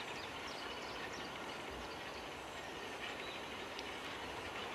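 Rebuilt Bulleid Battle of Britain class light Pacific steam locomotive working hard up the line, heard faintly from a distance as a steady wash of noise with a few faint high ticks.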